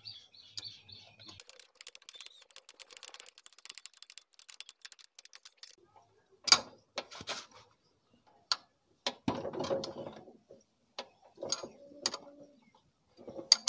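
Socket wrench ratcheting in a fast run of light clicks as the two carburettor mounting nuts are run down and tightened. After that come separate sharp metallic clicks and a short clatter of the tool against the engine.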